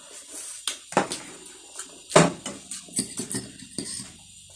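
Close-up eating sounds: sipping and chewing, with sharp clicks and knocks of a fork, spoon and chopsticks against plates and a bowl, the loudest about two seconds in.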